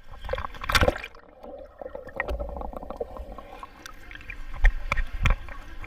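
Swimming-pool water splashing and sloshing as a small child paddles, with sharper splashes just under a second in and twice near the end.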